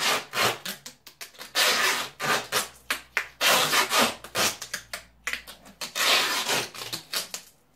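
A plastic zip tie ratcheting through its lock in a series of short, scraping pulls as it is cinched as tight as it will go around a pair of wrists.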